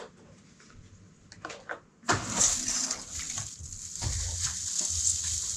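A few light clicks of small game pieces being set down on a table. Then, about two seconds in, a dense crackling rustle starts as hands dig through shredded crinkle-paper packing filler in a box.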